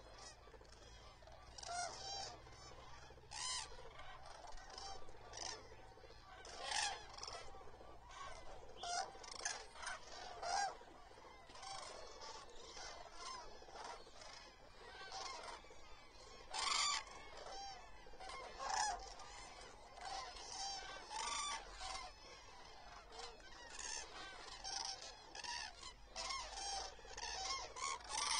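A large flock of common cranes calling: many overlapping trumpeting calls, some near and louder, others farther off, continuing throughout.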